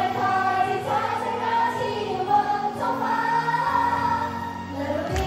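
Female pop idol group singing together over an instrumental backing, with several voices on the melody and held low notes underneath.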